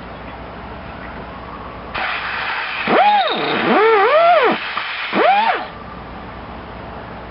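8 hp Briggs & Stratton engine spun over on its recoil starter with the spark plug out, three quick pulls about a second apart, each a whine that rises and falls with the flywheel's speed. It is being cranked to check for spark at the tester.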